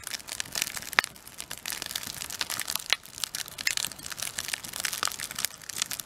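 Freshly lit campfire of newspaper, birch bark and split kindling crackling with irregular snaps, one sharp pop about a second in.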